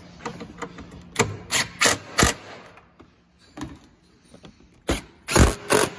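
Hand ratchet with a Torx bit tightening bolts: a series of separate sharp clicks and knocks, irregularly spaced, with a cluster of four about a second in and several more near the end.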